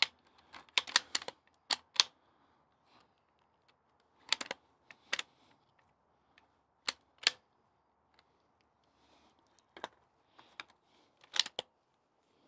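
Bergara B14R .22 rimfire bolt-action rifle being fired and worked: a string of sharp clicks and cracks spaced irregularly, some in quick pairs or clusters, the loudest about two seconds in and again near the end.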